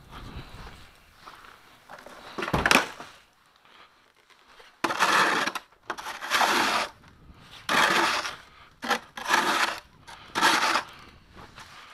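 Snow shovel scraping snow off a walkway: five long scrapes of the blade along the pavement, about a second and a half apart, after a single sharp knock a few seconds earlier.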